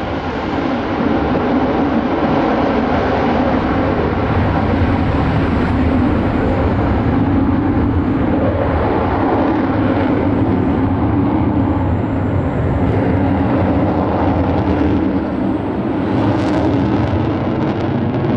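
Loud, steady jet noise from an F-35 fighter's single Pratt & Whitney F135 turbofan as it flies overhead, easing slightly near the end.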